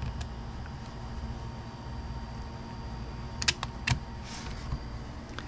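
Small clicks and taps of hard plastic and metal RC car parts handled and fitted together by hand as an axle and bolt go into a hub carrier, with a pair of sharp clicks about three and a half seconds in and another half a second later. A steady low hum runs underneath.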